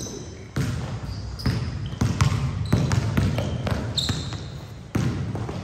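A basketball bouncing on a hardwood gym floor, about five irregular thumps, with short high squeaks of sneakers on the court in between.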